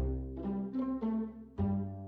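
Background music: a light children's tune of short plucked-sounding notes over a steady bass line.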